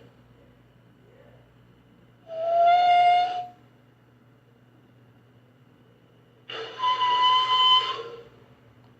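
Sea lion calling twice: two drawn-out calls held at a steady pitch, the first about two seconds in and lasting over a second, the second, a little longer and higher, near the end.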